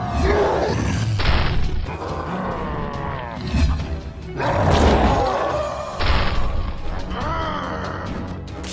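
Cartoon fight soundtrack: music with a character's grunts and roars, broken by sudden crashing impacts about a second in and again about six seconds in.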